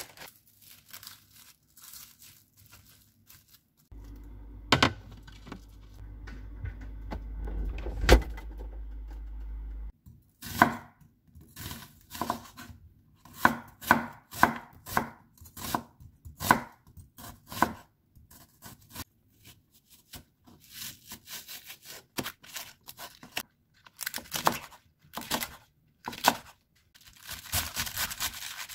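Chef's knife slicing an onion and then chopping cabbage on a wooden cutting board: a long series of knife strokes knocking on the board, growing quicker and crunchier near the end. Before the chopping starts there is a steady low hum for about six seconds with two sharp knocks in it.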